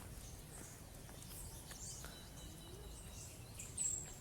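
Quiet outdoor ambience with a low steady rumble; near the end a small bird gives a short, high, falling chirp.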